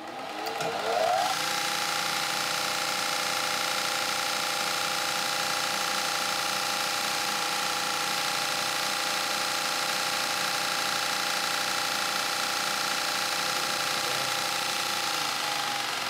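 Lagler Hummel 8-inch floor belt sander's electric motor starting up with a rising whine, then running at a steady pitch, and beginning to wind down near the end. It is a test run to check the sanding belt's tracking after a top-roller adjustment.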